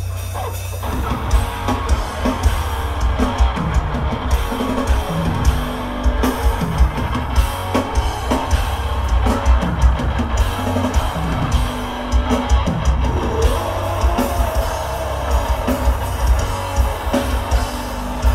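Metal band playing live: heavily distorted electric guitar and bass over a fast, busy drum kit. The full band comes in about a second in.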